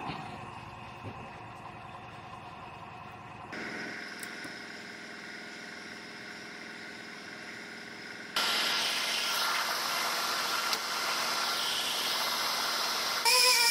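A steady machine hum that steps up abruptly twice; from about eight seconds in, a louder, hissing whir fits a handheld electric disc sander running on the aluminum hood. Music comes in just before the end.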